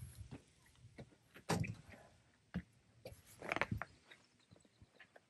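Faint, scattered clicks, knocks and rustling from a pop-up truck camper's fabric tent wall and hardware being handled. The louder handling noises come about a second and a half and three and a half seconds in.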